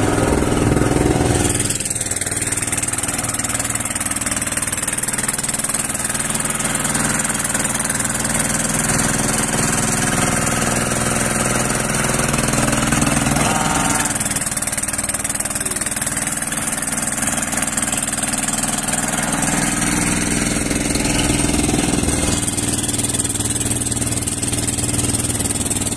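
Small single-cylinder diesel boat engine running steadily, its note shifting a few times as its load changes.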